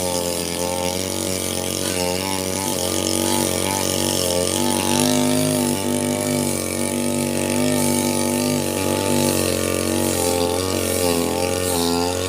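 Falcon 328 two-stroke brush cutter running at part throttle while cutting grass. Its engine note wavers up and down as the blade takes and sheds load.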